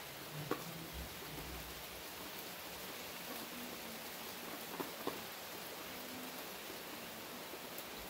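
Steady rain hissing, with a few sharp ticks: one about half a second in and two close together around five seconds in.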